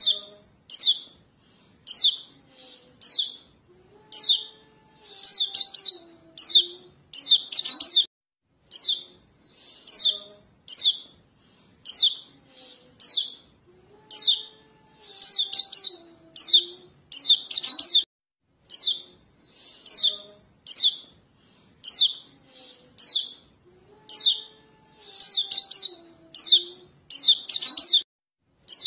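Young yellow white-eyes (kecial kuning) giving the contact calls that fledglings use to call their parents, played as a bird-trapping lure. The calls are short high chirps, several a second in bursts, and the same sequence repeats about every ten seconds.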